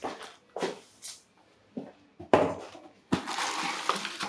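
Packaging being handled: a few short knocks and rustles, then from about three seconds in a small plastic bag of parts crinkling steadily in the hands.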